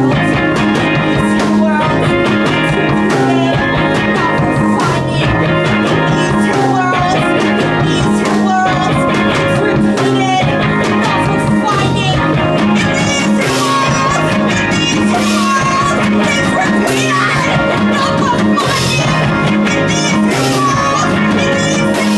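A live rock band playing loudly, with drums and electric guitar. Cymbal hits come more often in the second half.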